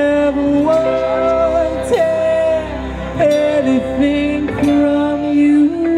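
A live pop band playing: a lead singer sings long held notes over acoustic and electric guitar, keyboard and drums.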